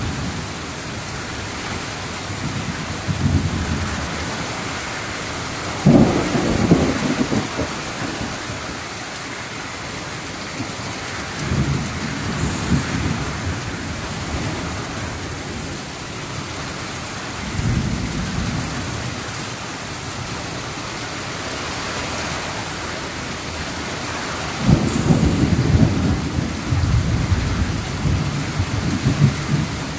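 Rain falling steadily in a thunderstorm, with rolls of thunder rumbling several times. The sharpest and loudest clap comes about six seconds in, and a long rumble runs through the last few seconds.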